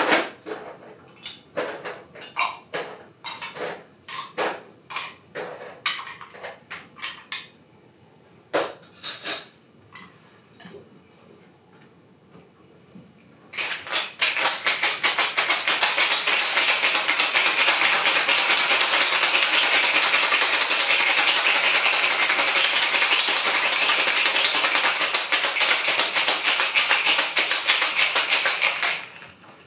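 Separate clinks and knocks of ice and metal bar tools being handled. Then, after a short pause, ice rattling fast and evenly inside a cocktail shaker, shaken hard for about fifteen seconds before stopping near the end.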